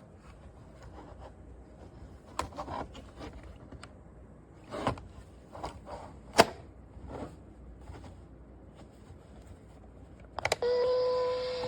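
A string of small plastic clicks and short rustles from handling a portable cassette player, the sharpest about halfway through. Near the end, music from the player starts up again.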